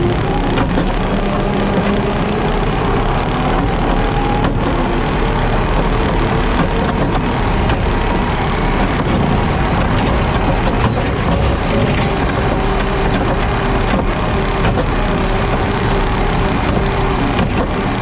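JCB Teleskid skid steer's diesel engine running under load with a 7-foot Jenkins bush hog (rotary cutter) spinning, a loud steady mowing noise.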